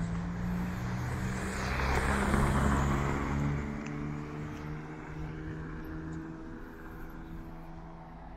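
An SUV drives past and away up the street. Its engine hum and tyre noise swell to a peak about two seconds in, then fade as it recedes.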